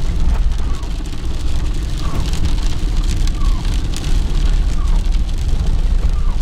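Inside a car driving on a wet dirt track: a steady low engine and tyre rumble, raindrops tapping on the windscreen and roof, and the windscreen wipers sweeping with a short swish about every second.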